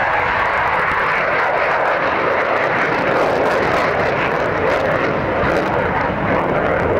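F-16 fighter jet's engine heard as the jet banks through a display turn: a loud, steady rushing jet noise.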